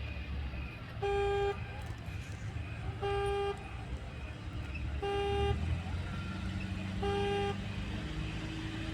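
A steady electronic beep repeating exactly every two seconds, each beep about half a second long and four in all, over the low rumble of a vehicle engine.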